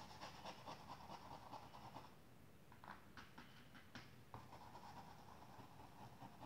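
Faint scratching of a paintbrush working white paint onto fabric in many short, repeated strokes.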